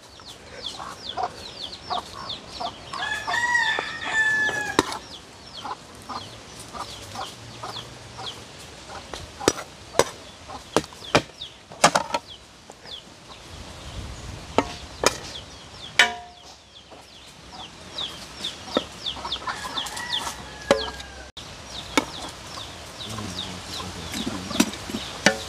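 A rooster crows about three seconds in and again near twenty seconds, with chickens clucking in between. A metal serving spoon clinks and scrapes against a large aluminium pot and ceramic plates as rice and peas are dished out.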